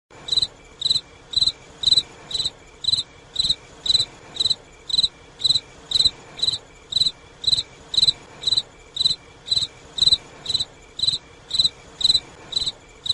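A cricket chirping steadily, short even chirps about twice a second, over a faint background hiss.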